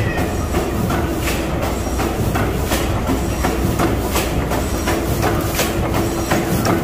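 Large antique Snow gas engine running at a steady speed. Its rods and valve gear make a regular clatter of several clicks a second over a constant hum and low rumble.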